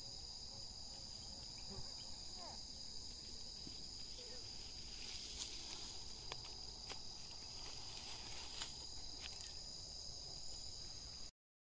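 Steady high-pitched trilling of an insect chorus, with a few faint clicks in the middle; it cuts off suddenly near the end.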